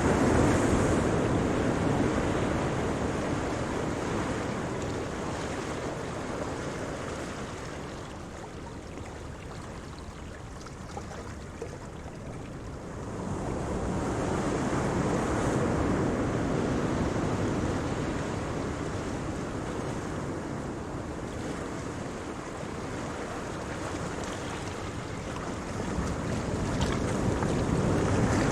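Ocean waves breaking and washing on a shore, a steady rushing surf that swells with each wave about every 13 seconds, with wind noise on the microphone.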